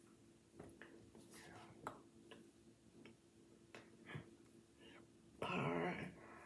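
Faint clicks and taps of hands and fingers striking each other while signing in sign language. About five and a half seconds in comes a short, louder voiced sound from the signer's mouth, under half a second long.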